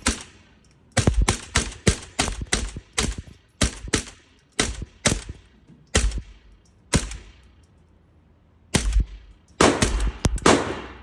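Rifle shots fired in quick, uneven succession: about twenty sharp cracks, most a third to half a second apart, with a pause of nearly two seconds in the second half.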